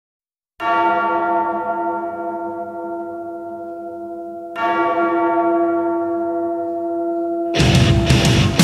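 A large tolling bell struck twice, about four seconds apart, each stroke ringing on and slowly fading. Loud band music comes in about a second before the end.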